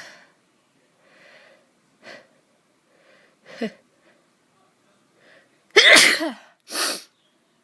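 A woman sneezes about six seconds in, after a few faint catching breaths, with a short breathy burst straight after it.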